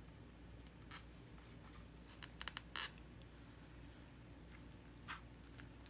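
Faint, sparse snips and scratches of scissors cutting into a foam-filled rubber balloon: one short click about a second in, a quick cluster of three or four a little past halfway, and one more near the end.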